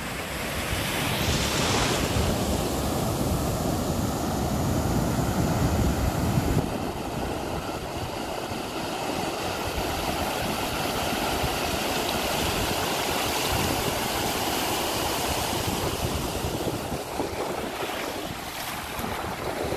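Ocean surf breaking and washing through the shallows in a steady rush. A heavier low rumble in the first third drops away suddenly, and the wash runs on more evenly.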